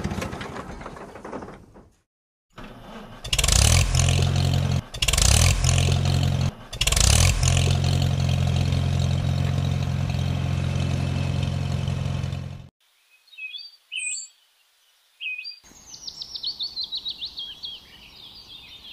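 A tractor engine runs steadily, with three short louder bursts in its first few seconds, and stops abruptly about two-thirds of the way through. Birds then chirp, first a few scattered calls, then a rapid rhythmic run of chirps.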